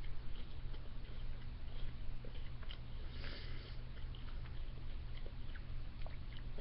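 Chewing a s'mores Rice Krispies Treat close to the microphone: small crunches and mouth clicks scattered throughout, over a steady low hum.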